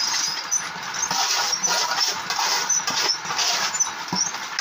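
A puffed-rice roasting machine runs with a steady low hum while rice grains are poured in and rattle inside it, making a dense hiss of tiny clicks. A single dull knock comes near the end.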